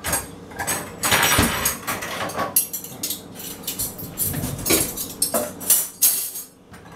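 Dishes and metal cutlery clattering and clinking in quick, irregular runs as they are handled and put away, with a cutlery drawer pulled open near the end.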